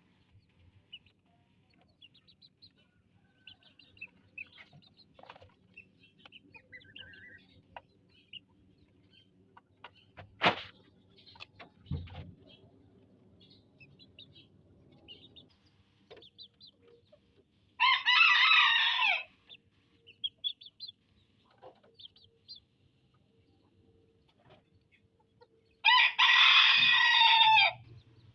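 A rooster crowing twice, once about two-thirds of the way through and again near the end, with scattered faint high chirps and a couple of sharp knocks in between.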